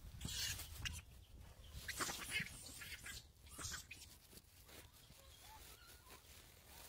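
A troop of macaques feeding on a stone path: rustling and scuffling in short bursts over the first few seconds, then faint short chirping calls.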